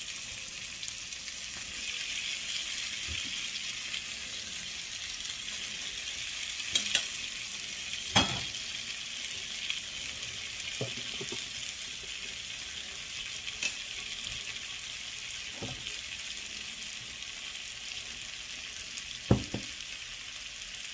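Chicken breast frying in oil with garlic and sun-dried tomatoes: a steady sizzle, broken by a few scattered knocks of a utensil against the pan, the sharpest about eight seconds in and near the end.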